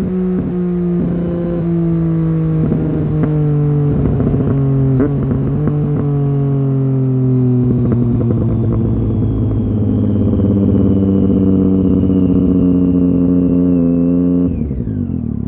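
Triumph Street Triple 675's three-cylinder engine through a LeoVince GP 3-2 exhaust with dB killer, heard from on the bike: a steady engine note whose pitch sinks slowly, with a few short knocks in the first half. Near the end the throttle is closed and the note drops quickly in pitch and level as the bike slows.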